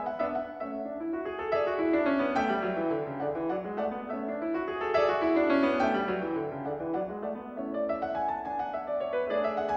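Piano music: flowing runs of notes whose low line sweeps down and back up twice.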